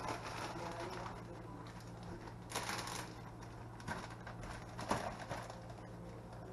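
A plastic bag of fish pieces crinkling and rustling as it is handled and opened, with louder crinkles about two and a half seconds in and again around four and five seconds in. A steady low hum runs underneath.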